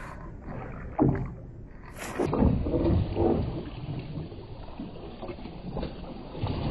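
Hooked barramundi thrashing and splashing at the water's surface as it is scooped into a landing net, with a sharp splash about a second in and a louder run of splashes from about two to three and a half seconds in.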